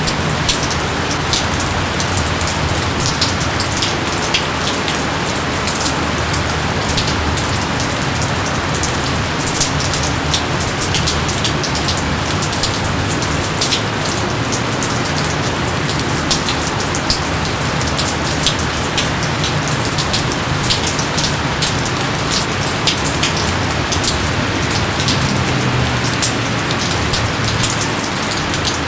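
Steady heavy rainfall, with many individual drops ticking sharply through the constant hiss of the downpour.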